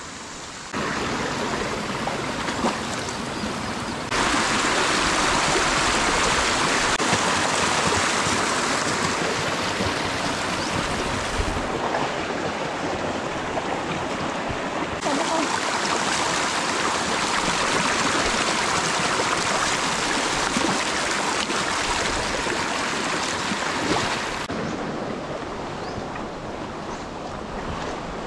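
Steady rushing of a shallow mountain stream running over rocks and small cascades, its loudness jumping up or down abruptly several times.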